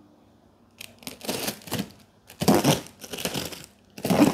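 A tape-wrapped parcel being slit open with a blade: several rasping tearing and crinkling strokes through the packing tape and plastic wrap.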